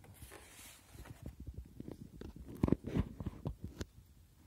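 Stiff card pages of a pop-up book being turned: a soft sliding hiss at first, then a run of light taps and knocks as the cardboard pop-up folds and the page lands, loudest about three seconds in.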